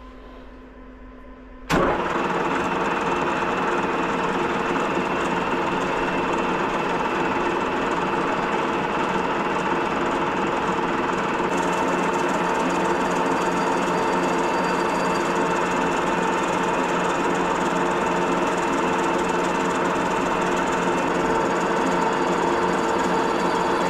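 Metal lathe switched on about two seconds in, then running steadily at 160 rpm with a constant whine of several steady tones over a hiss, as a carbide insert takes a slow cut on a small steel ring.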